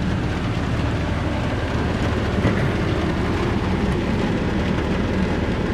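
Steady road and engine noise inside a moving vehicle's cabin, with hail and rain beating on the roof and glass.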